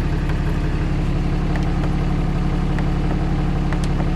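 2009 Dodge Ram 5500's 6.7-litre Cummins turbo-diesel idling steadily, heard from inside the cab.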